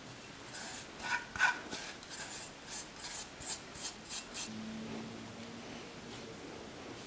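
Fingers scraping shaggy bread dough and flour out of a stainless steel bowl: a quick run of about a dozen short, scratchy scrapes, the loudest near the start, where the bowl rings briefly. They stop about two-thirds of the way through.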